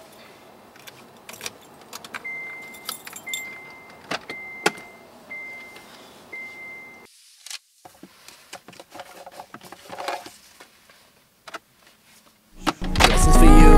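Keys jangling with small clicks and rustles inside a car, while the car's warning chime beeps five times, about once a second, a couple of seconds in. Loud music comes back in near the end.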